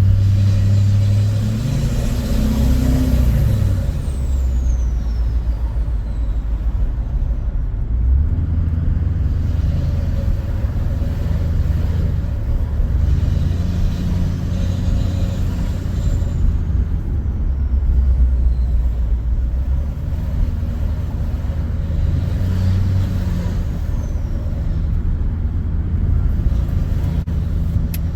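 LBZ Duramax 6.6 L V8 turbodiesel pickup driving. The engine pulls with a rise in pitch a second or two in, then runs steadily at cruise. A thin high whistle glides down in pitch three times.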